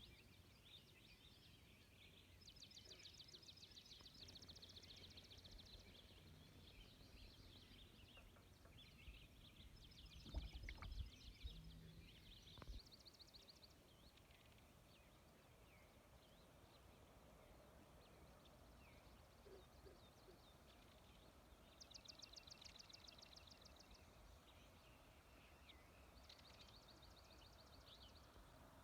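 Birds singing rapid, high-pitched trills several times, each lasting a couple of seconds, over faint outdoor ambience. A few soft low knocks come about ten to thirteen seconds in.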